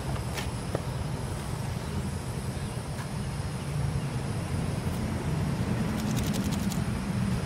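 Steady low rumble of interstate traffic, with a short run of light clicks about six seconds in.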